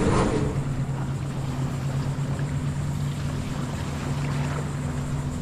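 Steady low drone of a motorboat engine running, with wind noise on the microphone.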